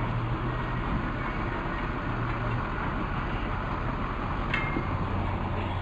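Car engine running at low speed with road and wind noise, a steady low hum under an even rush. A brief sharp squeak or click comes about four and a half seconds in.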